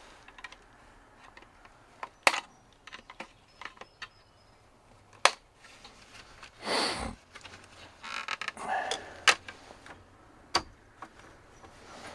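Handling noise from a plastic dash warning-light panel being worked with a screwdriver: scattered sharp little clicks and taps of plastic and metal, with a brief louder rustle about seven seconds in.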